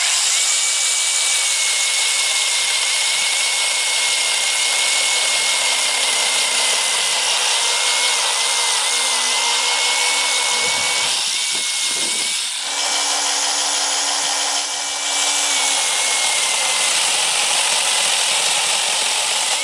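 A 21-volt brushless cordless 6-inch mini chainsaw running and sawing through a thin tree trunk: a steady high whine over the rasp of the chain in the wood. The whine wavers and dips briefly twice around the middle, and the saw starts right away and cuts off at the end.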